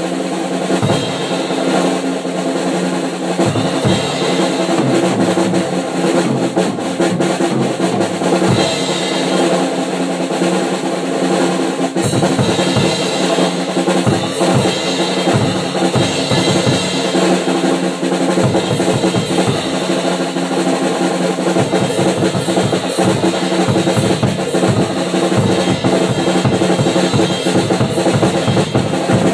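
Drum kit played in busy rolls and fills, snare, bass drum and cymbals together, with low kick-drum thumps dropping in and out, over sustained pitched tones.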